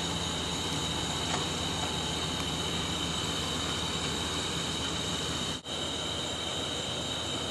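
Steady low hum of a vehicle engine idling, under a constant high-pitched chorus of night insects, with a momentary break in the sound about three-quarters of the way through.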